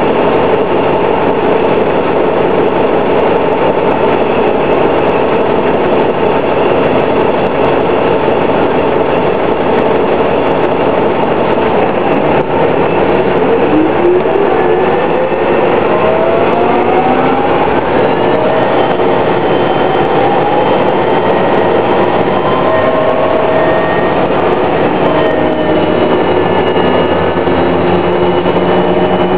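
2000 New Flyer D60 articulated bus with a Detroit Diesel Series 50 engine and Allison B400R transmission, running with a steady drone. From about 12 seconds in, a whine rises steadily in pitch over several seconds as the bus picks up speed, then a high whine holds steady toward the end.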